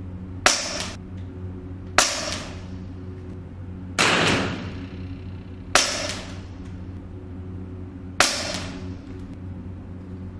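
KalibrGun Cricket .25 PCP bullpup air rifle firing five shots, spaced one and a half to two and a half seconds apart, each a sharp crack that dies away over about half a second; the middle shot is fuller and rings longer. A steady low hum runs underneath.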